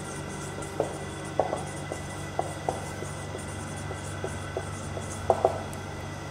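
Marker writing on a whiteboard: a dozen or so short, irregular taps and strokes as the letters are formed, stopping about five and a half seconds in, over a steady low room hum.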